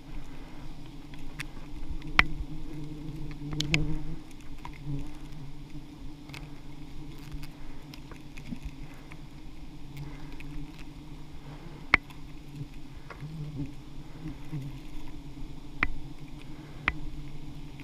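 Giant honeybees (Apis dorsata) buzzing steadily in a dense swarm around the comb being cut from the tree, a colony stirred up by the harvest. Sharp taps sound now and then, the loudest about 12 seconds in.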